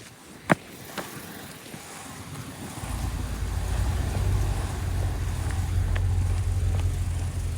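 A single sharp knock, with a fainter click half a second later, then about three seconds in a car engine's low rumble comes in and holds steady.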